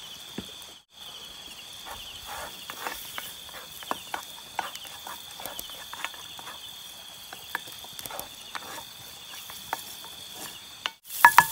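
A wooden spoon scrapes and taps in a skillet as egg is stirred and fried over a campfire, giving irregular short clicks, with a steady high insect trill behind. Right at the end a louder sizzle of frying starts.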